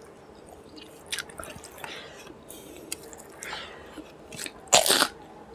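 Close-miked chewing and wet mouth sounds of a man eating chicken liver curry with rice by hand: soft squishy bites and smacks, with a louder one near the end.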